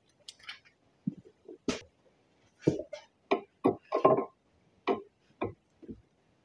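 Hand grease gun being pumped into the grease fitting of a new U-joint: a series of short, uneven clicks and clunks, about two a second.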